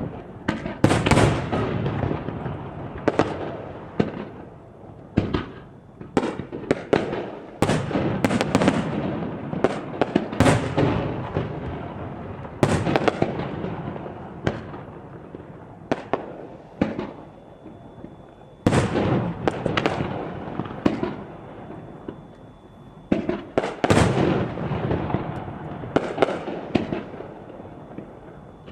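Fireworks shells bursting overhead in quick volleys: many sharp bangs, some clustered several to a second, each followed by a long echoing rumble, with short lulls between volleys.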